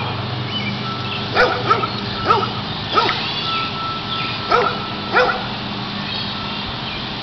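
A dog barking: about six short barks spread over roughly four seconds, some in quick pairs.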